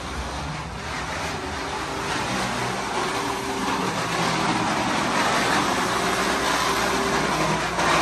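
A 15- to 16-year-old corded Simplicity vacuum cleaner running, its motor noise growing louder. It is the noise of a failing motor that smells like it is burning.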